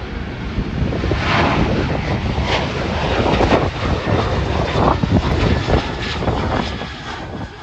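Southwest Boeing 737 jet engines at takeoff power just after rotation, the airliner climbing away with a loud, ragged rumble that swells through the middle and eases near the end.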